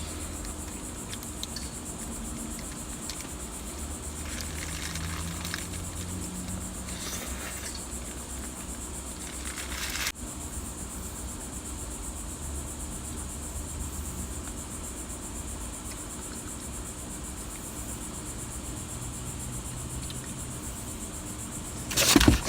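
Quiet ambience inside a parked car: a steady high-pitched whine and a low hum, with a few faint ticks, a sharp click about ten seconds in, and a louder burst of noise near the end.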